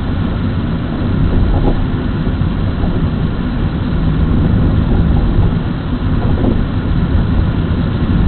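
Steady car driving noise inside the cabin, picked up by a dashcam microphone: engine and tyre rumble on a wet road, with no distinct events.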